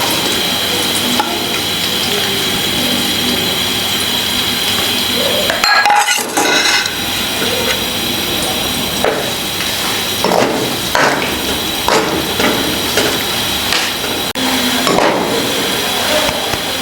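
Finely chopped onions frying in hot cooking oil, with a steady sizzle throughout. A metal spoon stirring scrapes and knocks against the pot several times, most often in the second half.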